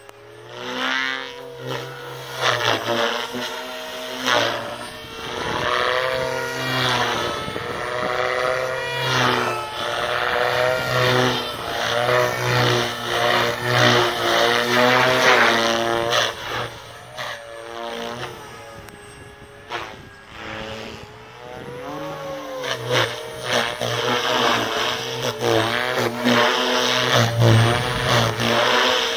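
OXY 4 electric RC helicopter with 320 mm blades flying 3D just above the grass: the motor and rotor whine rises and falls in pitch and loudness as it swings through manoeuvres.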